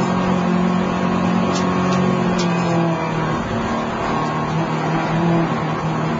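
Mini rallycross race car's engine heard from inside the car at speed, running hard at steady high revs; its note drops a little about halfway through and holds there. A few faint ticks sound between about one and a half and two and a half seconds in.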